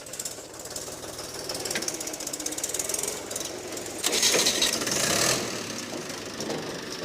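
Mahindra tractors' diesel engines running hard with a fast, knocking rhythm as they pull against each other in a tractor tug-of-war. The sound gets louder and harsher for about a second and a half, a little past the middle.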